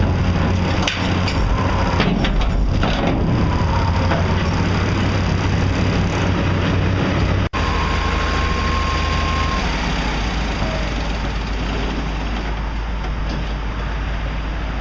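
Heavy construction machinery running steadily, with a few cracks and crunches in the first three seconds. The sound drops out for an instant about halfway through.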